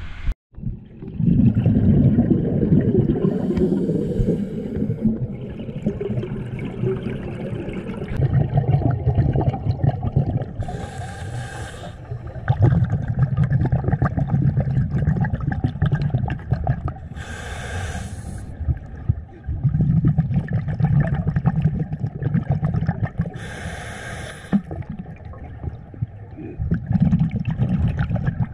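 A swimmer breathing hard, picked up with the camera underwater. Long, muffled, bubbly exhales alternate with short hissing in-breaths, about once every six seconds.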